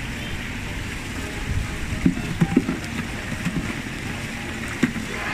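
Water running steadily down a plastic water-play flume, with a few short low thumps about two seconds in and another near the end.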